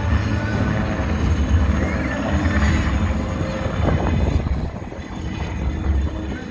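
Military helicopter flying past low, its rotor beating in a steady low throb over the engine noise, easing off a little about five seconds in.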